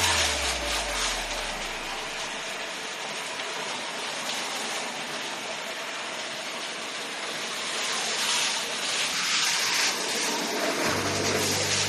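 Steady hiss of a water spray washing down an air conditioner unit during cleaning.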